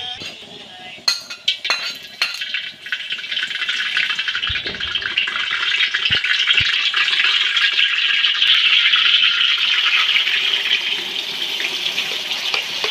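Hot oil sizzling in a wok, starting soft and building to a loud, dense sizzle about three seconds in as chopped onion, shallot, garlic, ginger, lemongrass and chilli fry in it. A few sharp clicks and knocks come in the first couple of seconds.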